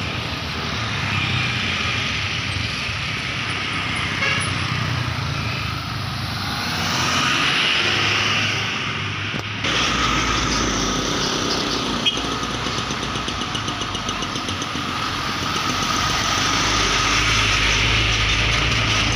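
Road traffic passing close: motorcycles running by, then sand dump trucks passing with their diesel engines rumbling, and cars following. The low engine rumble comes in strongly about ten seconds in.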